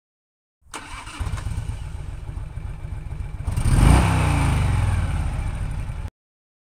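Motorcycle engine coming in about half a second in, running with a lumpy low beat, revved once in the middle, its loudest point, then running on and cutting off suddenly about a second before the end.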